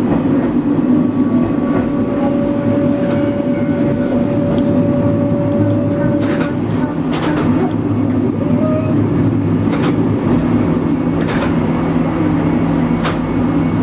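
Diesel railcar running along the line: a steady engine and running drone, with wheels clicking sharply over rail joints every so often. A thin steady whine holds from about two seconds in and stops about halfway through.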